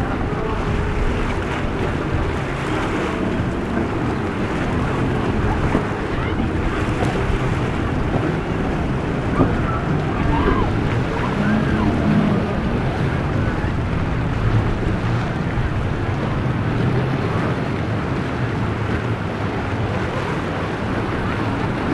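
Breaking surf and churning white water with a boat's engine running underneath, and wind buffeting the microphone.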